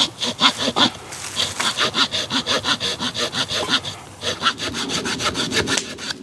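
Small hand saw cutting a notch into a dead standing hardwood stump: quick back-and-forth strokes at about four or five a second, with a short pause about four seconds in.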